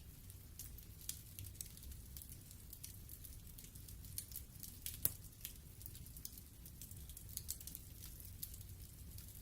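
Wood logs burning in a fireplace, crackling with many small irregular pops over a steady low rumble. One louder pop comes about five seconds in.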